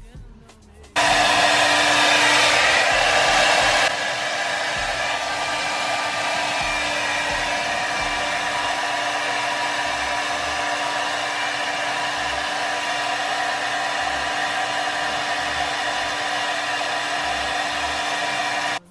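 Handheld hair dryer switched on about a second in, blowing a steady rush of air over a low motor hum. It runs loudest for about three seconds, drops abruptly to a slightly lower level, then runs steady until it is switched off just before the end.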